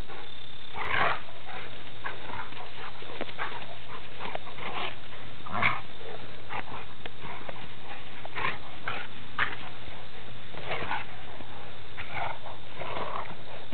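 A mastiff and a leonberger playfighting: a run of short, irregular play growls and grunts, with a few louder ones about a second in and again around five and a half, eight and nine seconds.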